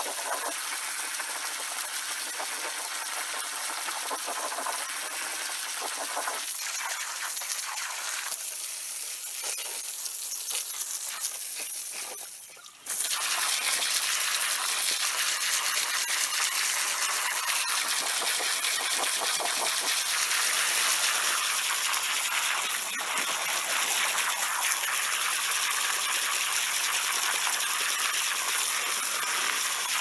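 Strong jet of water from a garden hose spraying into a shallow rock-lined pond, hissing and splashing steadily. It drops away briefly about twelve seconds in and comes back louder and fuller.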